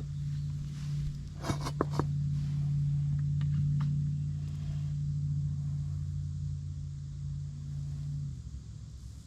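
A steady low mechanical hum that cuts off about eight seconds in, with a few short metallic clinks about a second and a half in.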